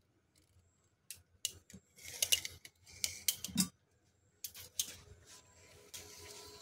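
Handling noises of a knife blade and steel cups on a measuring string: several short bursts of scraping and metal clinking a second or so apart, then a faint steady hum near the end.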